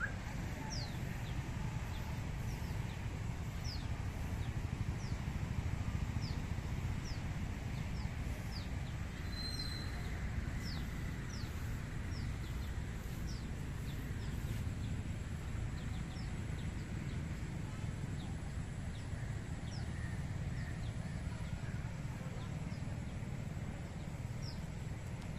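A bird calling over and over: short high notes that fall in pitch, a little more than one a second, over a steady low rumble.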